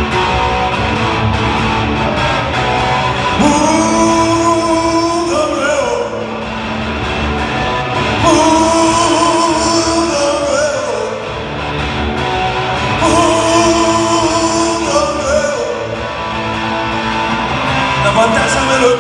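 Live rock music: an electric guitar playing long held lead notes, each lasting a couple of seconds, that bend and waver, with singing.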